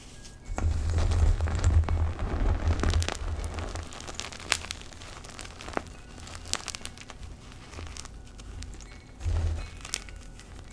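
Hands squeezing and crushing a bowl of powdered Colift gym chalk and broken chalk pieces: soft crunching and crumbling, heaviest for the first few seconds. Scattered small crackles follow, then another brief squeeze near the end.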